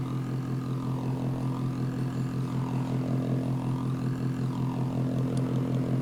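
Electronic noise from a home-built transistor circuit as its potentiometer is turned up and down: a steady low hum with fainter higher tones that rise and fall twice.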